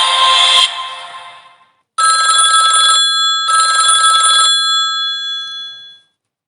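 Samsung Wave II (GT-S8530) phone playing a telephone-bell-style ringtone through its loudspeaker: two ringing bursts of about a second each, half a second apart, each ringing down after it. Before them, the previous music ringtone fades out within the first second or so.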